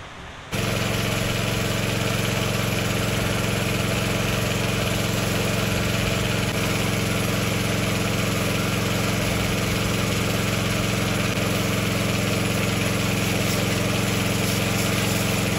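Pressure washer running steadily, its motor and pump humming under the hiss of the water jet spraying a motorcycle. It cuts in suddenly about half a second in.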